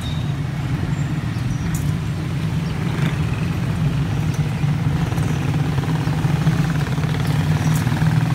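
Steady low drone of a motor vehicle engine running, with a few faint clicks over it.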